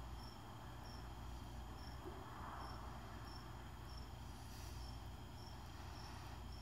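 A cricket chirping faintly and steadily, short high chirps evenly spaced about three every two seconds, over a low background hum.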